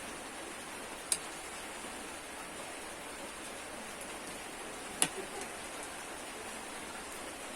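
Steady hissing background noise with two sharp clicks, one about a second in and a louder one about five seconds in.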